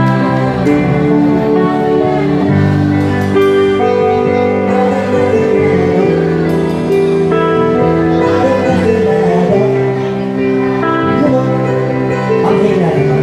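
A band playing music, with guitar among the instruments and held chords that change every second or two, at a steady loud level.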